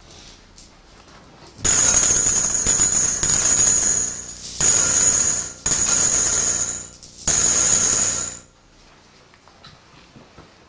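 Small metal pieces jingling in glass bowls, in four loud bursts of one to two and a half seconds each, with a bright high ringing.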